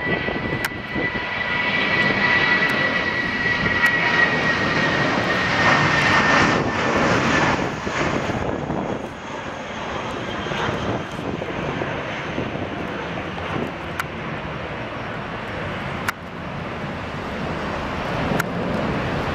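An airliner's engines passing by, with a high whine that slowly drops in pitch over the first several seconds. The sound is loudest about four to seven seconds in, then eases to a steadier rumble as the aircraft moves away.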